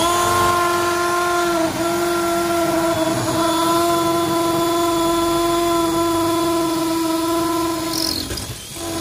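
Makita 18V cordless drill running at steady speed with a high, even whine while a masonry bit bores into brick. The whine dips briefly about two seconds in, eases off near the end, then picks up again.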